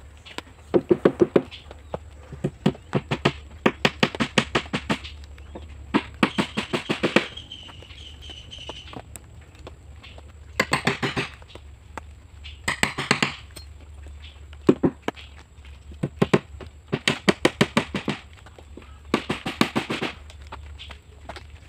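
Hammer driving nails into the Meranti planks of a wooden canoe hull, in short bursts of rapid taps, about ten strikes a second, with pauses between the bursts.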